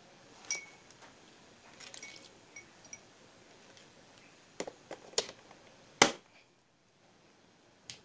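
Razor-blade electrodes and wire clinking lightly against a drinking glass as they are set into the water, followed by a few plastic knocks, the loudest about six seconds in, as a two-pin plug is pushed into a socket board, and a single switch click near the end.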